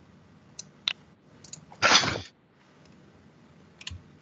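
A few sharp clicks of computer keys or a mouse, then a loud burst of noise lasting about half a second about two seconds in.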